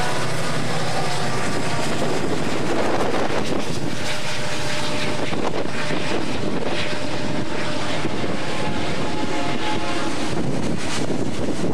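Union Pacific diesel-hauled freight train passing close by: the locomotive's horn trails off in the first second, then a steady rumble and rattle of freight cars rolling over the rails.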